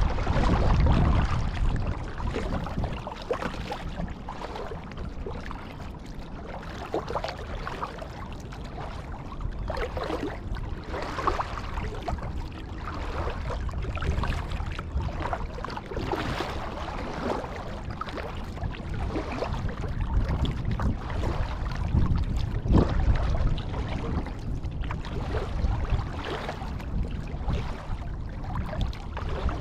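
Kayak being paddled: paddle blades dipping and splashing in the water every second or two, with wind rumbling on the microphone, loudest in the first second or so.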